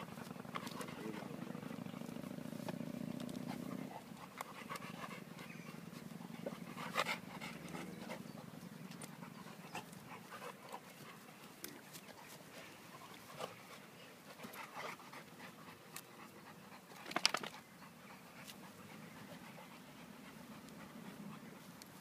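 An American Staffordshire Terrier and a Great Dane puppy panting as they play-wrestle. There is a low steady rumble for the first four seconds that stops suddenly, and there are a few short sharp noises, the loudest about seventeen seconds in.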